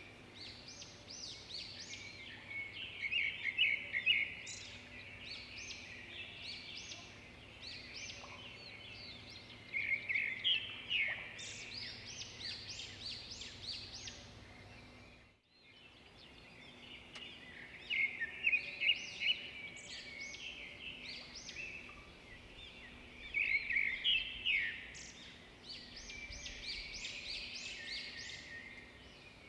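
Birdsong: many birds chirping in quick, overlapping flurries, with a sudden gap of about half a second near the middle.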